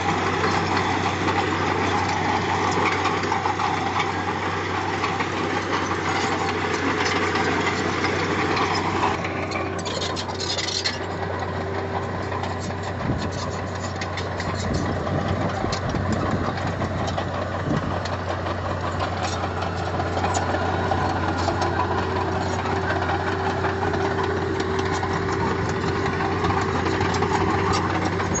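Diesel engine of heavy earthmoving equipment running steadily for the whole stretch, its sound changing about nine seconds in, with a brief crackle and scattered clicks after it.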